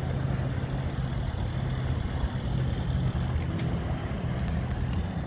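Steady low hum of an idling diesel truck engine, mixed with outdoor background noise.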